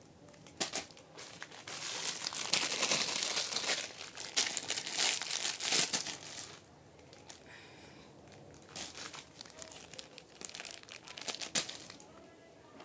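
Plastic wrapping crinkling and rustling as squishy toys are handled. It is dense and loudest for about four seconds starting two seconds in, then thins to scattered crackles and rustles.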